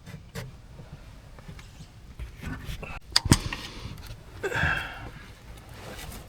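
Clicks and knocks of parts and tools being handled during an oil filter change, loudest as two sharp taps about three seconds in, followed by a short scraping rustle.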